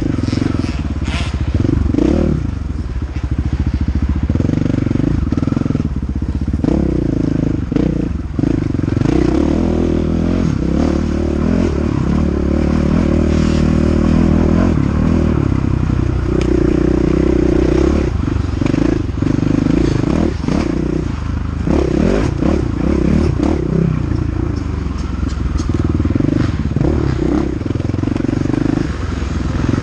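KTM 500 EXC single-cylinder four-stroke dirt bike engine running hard under racing, revving up and down through the gears, with frequent clatters and knocks from the bike over rough ground.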